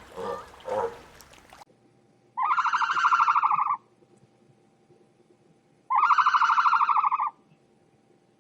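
An animal's pulsing, buzzy call, given twice, each about a second and a half long, after a quieter sound that cuts off early on.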